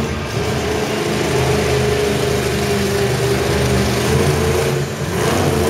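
Monster truck's supercharged V8 engine running at fairly steady, moderate revs as the truck rolls across the arena dirt. The engine eases off briefly near the end, then picks up again.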